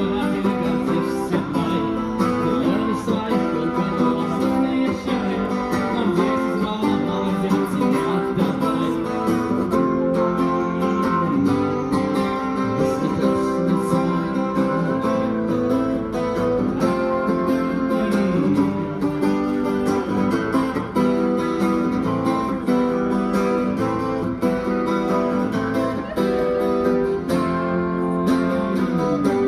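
Acoustic guitar being strummed steadily in a street busker's song.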